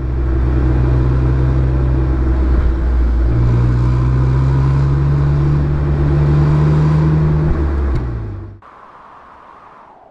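BMW Z4 E85 roadster engine heard from the open cockpit, pulling under load with wind and road noise. A gear change about two and a half seconds in, then the engine note rises steadily as the car accelerates. It eases off and cuts out near the end.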